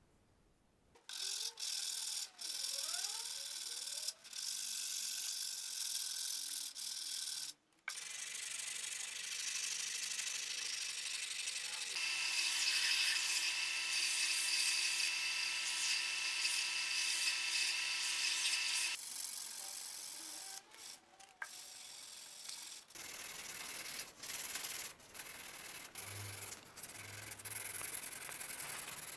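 Scrubbing and brushing on the rusty steel axe head, in several short edited runs. For about seven seconds near the middle a steady hum with a high whine sounds under the brushing, and near the end the strokes turn short and broken.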